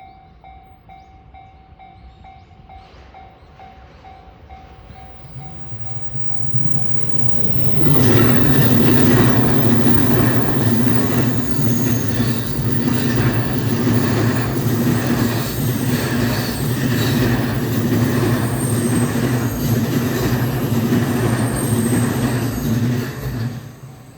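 Japanese level-crossing warning bell ringing in a quick, even pulse. A Yokosuka Line electric train then runs loud through the crossing from about seven seconds in, with a steady motor hum and a rhythmic clatter of wheels over rail joints, and it falls away near the end.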